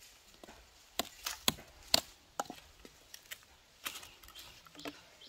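A knife blade chopping into small hard green fruits held in the hand: about eight sharp knocks in an uneven rhythm from about a second in, thinning out near the end.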